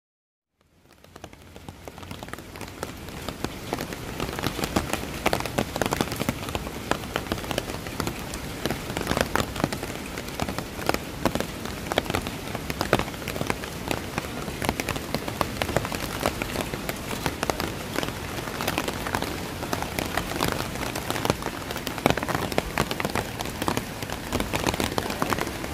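Steady rain falling, a continuous hiss with many sharp, close drop impacts throughout; it fades in over the first few seconds.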